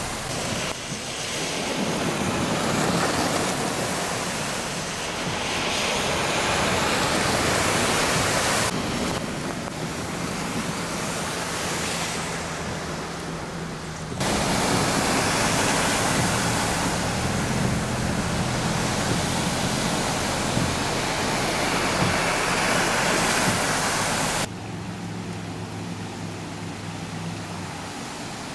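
Floodwater running across a street, heard as a steady rushing hiss with wind buffeting the microphone; the sound changes level abruptly three times. A low vehicle engine hum runs under the later parts, where a pickup truck drives through deep water and throws up spray.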